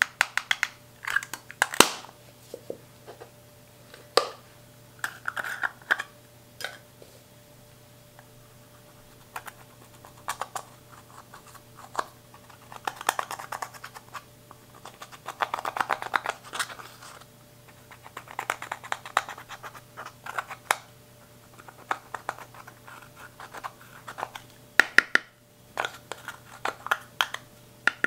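A small hand tool scraping and crumbling pressed eyeshadow out of plastic compacts: irregular bouts of gritty scratching with sharp clicks scattered through, and short pauses in between.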